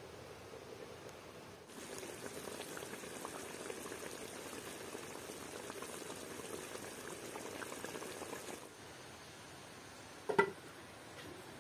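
Chicken stew simmering in a frying pan, the sauce bubbling and crackling steadily. Near the end a single metallic clank rings out as the pan's lid is handled.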